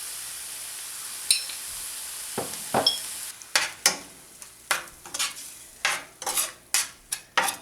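Onion-tomato masala sizzling in hot oil in a pan. From about two and a half seconds in it is stirred, and the utensil scrapes the pan in quick strokes about twice a second.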